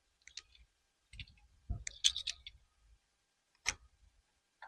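Scattered light clicks and knocks of plastic parts being handled on the Spyder, with a small cluster about two seconds in and a single sharp click near the end, as the closed panel is checked for whether it has latched.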